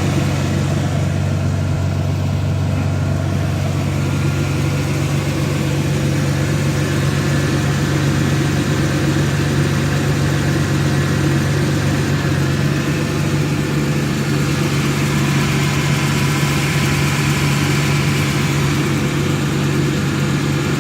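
2002 Dodge Intrepid's 2.7-litre V6 engine idling steadily.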